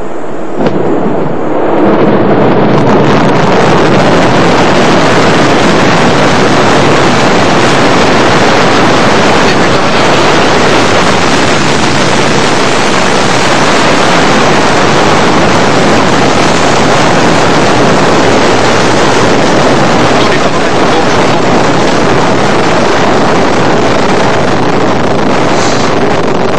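Ariane 5 ECA rocket lifting off, its Vulcain 2 main engine and two solid rocket boosters burning: a loud, steady noise that swells up about two seconds in and holds as the rocket climbs.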